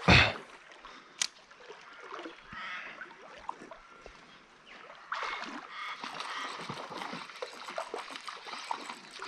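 A hooked brown trout splashing at the surface of a shallow river while being played on light spinning tackle: a loud splash right at the start, a sharp click about a second later, then a steady rush of water from about five seconds in.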